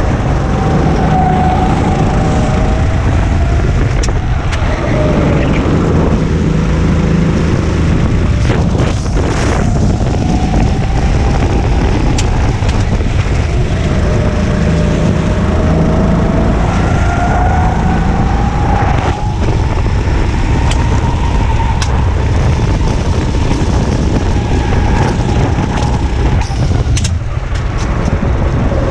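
Onboard sound of a go-kart engine racing around a circuit, its pitch falling into corners and climbing again on the straights. Wind rumble on the microphone runs underneath, with a few brief knocks.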